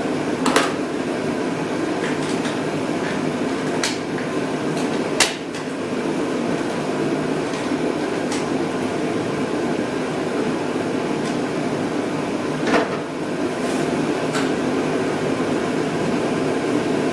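Steady drone of a shop heater running, with a few sharp clicks and knocks over it.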